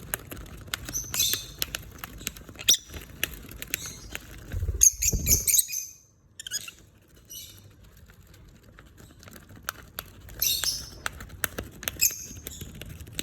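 Lovebirds shredding with their beaks: a run of small clicks and crackles, with a few brief high rustling bursts. There is a low bump about five seconds in, followed by a quieter stretch of a few seconds.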